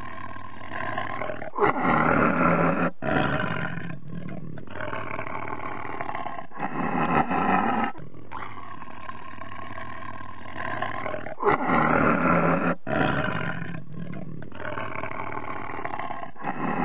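Tiger roaring and growling: lower growls throughout, with loud roars about two and three seconds in. The same sequence repeats about ten seconds later.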